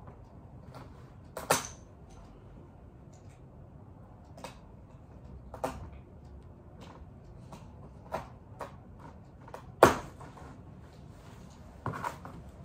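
Packaging being handled and pried at during an unboxing: scattered knocks and clicks with faint rustling between them. The loudest knocks come about a second and a half in and near ten seconds in.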